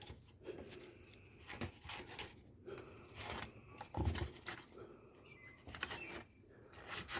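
Small handling noises of a belt being swapped on a Work Sharp Ken Onion sharpener: scattered light clicks, rustles and a couple of soft knocks, with the motor off.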